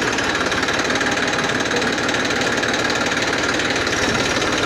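Massey Ferguson 241 DI tractor's three-cylinder diesel engine running steadily close by, with an even, rapid clatter.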